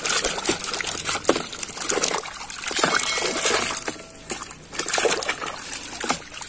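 Muddy water splashing and sloshing in a basin as a toy gun is swished and scrubbed through it by hand, with a brief lull about four seconds in.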